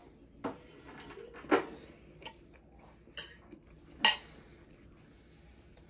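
Cutlery clinking against plates while eating pasta: about half a dozen short, separate clinks, the sharpest about four seconds in.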